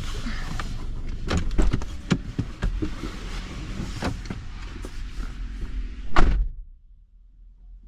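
Clicks and knocks, then a car door slamming shut with a loud thump about six seconds in, after which it goes much quieter.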